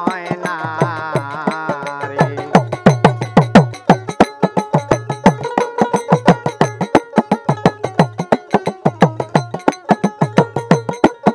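Instrumental interlude of Bengali Baul folk music: a plucked dotara melody over small hand cymbals and a small hand drum keeping a brisk, even beat. A wavering melody line carries the first couple of seconds before the beat fills in.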